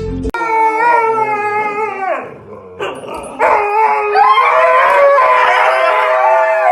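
A dog howling: one long howl, then after a short pause a second, longer wavering howl.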